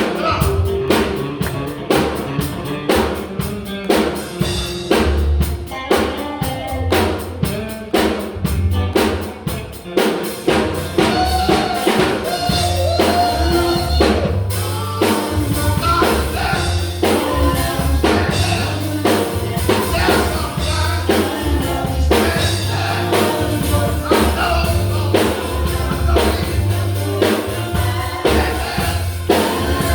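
Live gospel band playing, with a drum kit keeping a steady beat over bass guitar and keyboard, and singing that comes in more strongly about a third of the way through.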